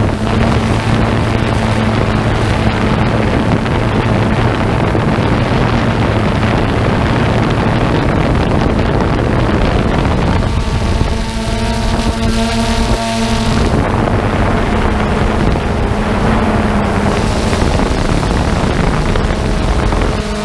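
Multirotor drone's motors and propellers buzzing steadily, with wind rushing over the onboard camera's microphone. A higher whine stands out for a few seconds around the middle.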